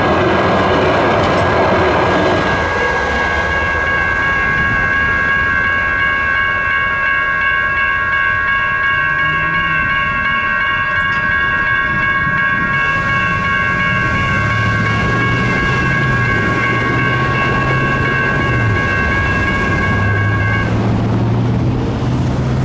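Electronic railroad crossing bells (E-Bells) ringing steadily as a light rail train runs past during the first couple of seconds. The bells stop shortly before the end as the gates go up, and a low hum comes in during the second half.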